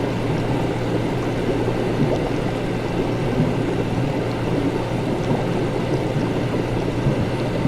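Laboratory ambience: a steady low hum under a constant busy bubbling, liquid-like noise, with no distinct events.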